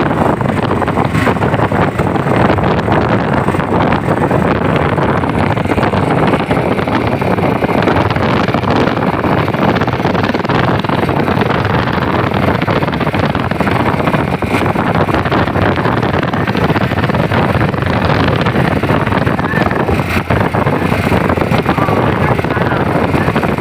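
Strong wind blowing hard across the microphone, a loud steady noise with no let-up.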